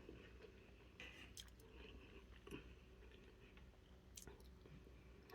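Faint chewing and a few soft mouth clicks of someone eating, over quiet room tone.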